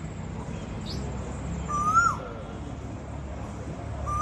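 A short whistled animal call, rising then dropping sharply in pitch, repeated every two and a half to three seconds: about halfway through and again at the very end. A steady low background hum runs under it.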